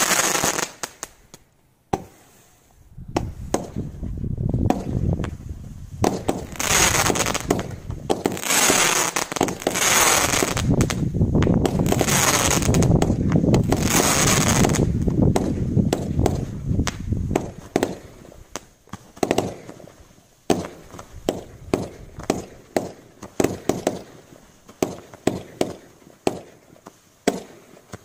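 Low-noise consumer fireworks: a dense, continuous rushing of shells being fired for the first half. It thins out into a run of separate sharp pops and crackles, about two a second.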